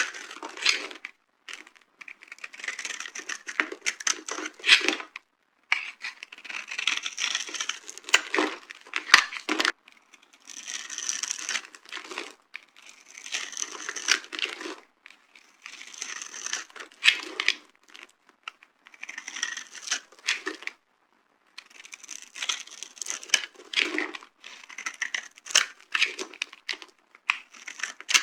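Dry soap cubes carved into boxes being crushed by hand, crunching and crumbling in a series of crackly bursts, each a second or two long, with short pauses between them.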